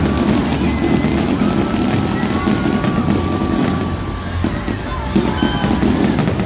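Fireworks display: a steady din of music and crowd noise, with a few sharp fireworks bangs in the second half.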